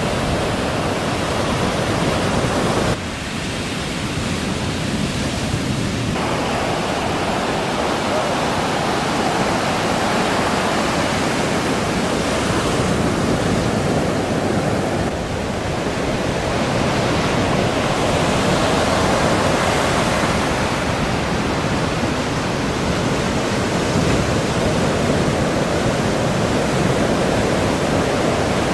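Steady rushing noise of ocean surf breaking and washing in, its level stepping down briefly about three seconds in and dipping again near the middle.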